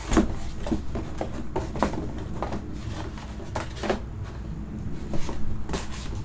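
Trading cards and box packaging being handled on a tabletop: an uneven run of light clicks, taps and rustles, with a few sharper knocks.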